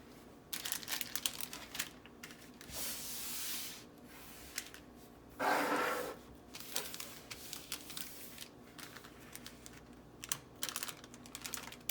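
Plastic jewelry bags and paper cards being handled: irregular crinkling and small clicks, with a longer rustle about three seconds in and a louder one at about five and a half seconds.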